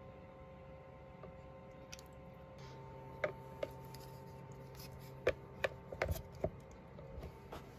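Plastic clicks and knocks as the flower-shaped spout cap of a cat water fountain is handled and snapped back onto the fountain, a dozen or so sharp taps, loudest near the end. A low steady hum runs underneath.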